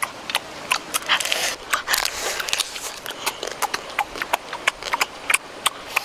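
Cooked crab shells cracking and crunching as they are bitten and chewed, with irregular sharp clicks several times a second.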